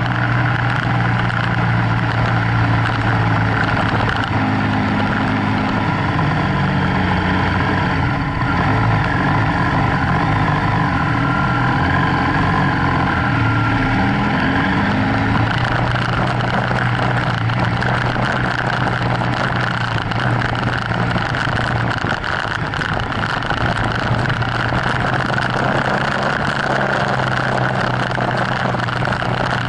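BMW F800GS parallel-twin engine running on an off-road track, heard from a camera mounted on the bike, over a steady rush of wind and tyre noise on gravel. The engine note shifts up and down several times in the first half as the throttle changes, then holds steady.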